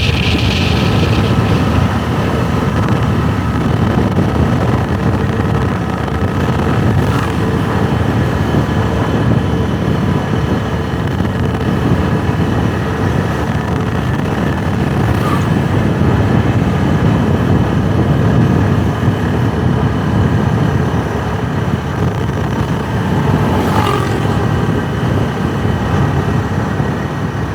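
A motorbike riding along the road: engine and road noise, with a steady low wind rumble on the microphone.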